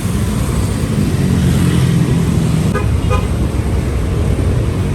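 Road traffic rumble from engines and tyres, with a couple of short horn toots about three seconds in.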